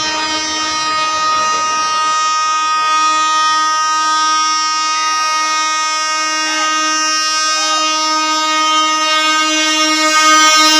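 The Tejas Express locomotive's horn is held in one long, unbroken blast at a steady pitch as the train approaches. It grows louder near the end.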